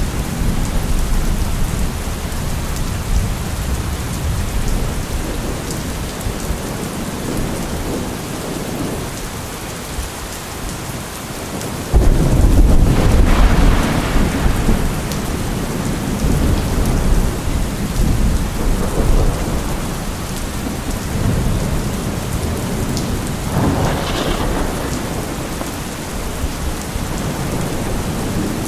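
Steady rain with thunder rumbling low underneath. About halfway through a sudden loud thunderclap breaks and rolls for a couple of seconds, and a smaller roll of thunder follows near the end.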